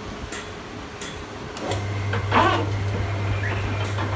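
A metal lathe is started up about halfway through, turning a chucked tractor wheel plate, and then runs with a steady low hum. There is a short, louder burst of sound just after it starts, and a few light clicks come before it.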